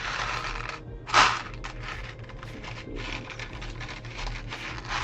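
Plastic Lego pieces being handled and rummaged through, in uneven stretches of clicking and rustling, with one loud clack about a second in.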